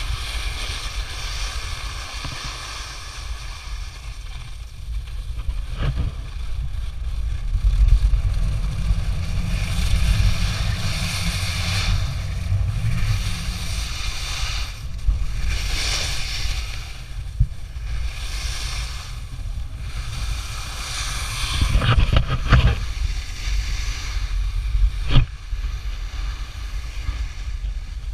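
A snowboard sliding and carving over snow, its scraping hiss swelling and fading with each turn, over a steady rumble of wind buffeting the camera microphone. A few sharp knocks come through, the loudest near the end.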